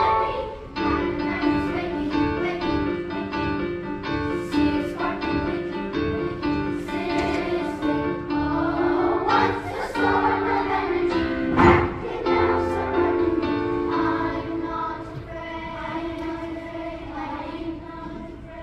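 Children's school chorus singing a song together. A single sharp loud hit comes about twelve seconds in.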